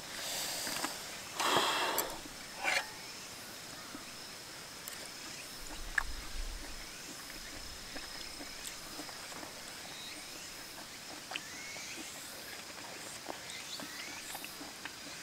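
A person breathing out hard twice, noisily, in the first two seconds after a mouthful of very spicy food. After that, a quiet outdoor background with a thin steady high whine and scattered faint chirps and small eating clicks.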